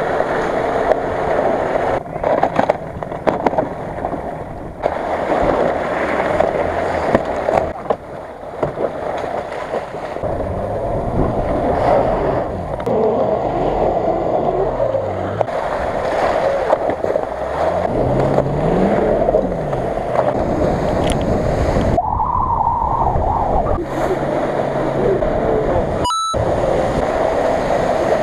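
Off-road 4x4 SUVs driving through water and wet snow: a steady rushing and splashing of water, with an engine revving down and up about midway.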